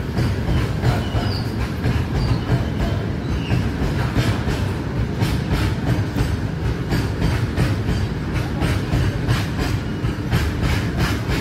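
A long goods train of freight wagons rolling past: a steady low rumble of wheels on rail, with the regular clickety-clack of wagon wheels over the rail joints.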